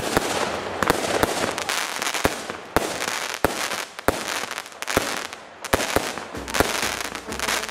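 Aerial fireworks going off in quick, irregular succession: many sharp bangs over a steady crackle from bursting shells and glittering stars.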